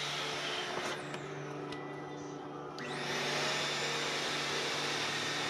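Wet/dry shop vacuum motor running. It drops away about a second in and starts up again with a rising whine just before three seconds, then runs steadily.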